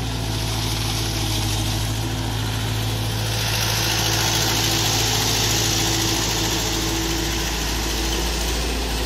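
Small CAT crawler excavator's diesel engine running steadily. A higher hiss joins about three seconds in as the loaded bucket is lifted and the machine swings.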